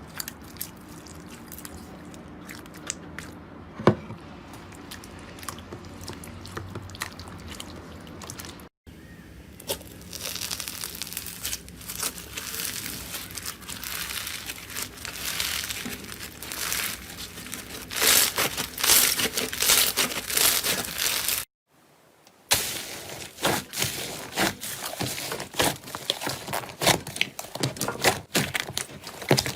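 Slime being squeezed, poked and pressed, making irregular crackling, crunching and popping sounds, in a run of short clips. It is quieter and sparser at first, with one sharp pop about four seconds in. After a cut it becomes dense crackling, loudest shortly before a brief break about three quarters of the way through.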